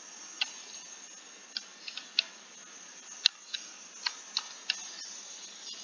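Computer clicks: about nine single sharp clicks at uneven intervals, over a faint steady hiss.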